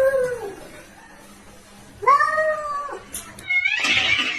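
A cat meowing: a long, drawn-out meow fading out about half a second in, then another long meow about two seconds in. A brief, rougher noisy sound follows near the end.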